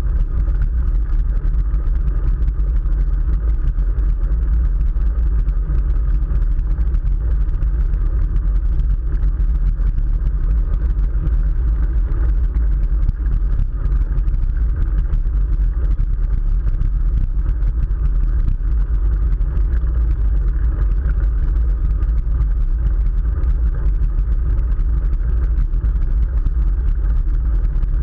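Steady low wind rumble on the microphone of a camera riding along on a moving bicycle.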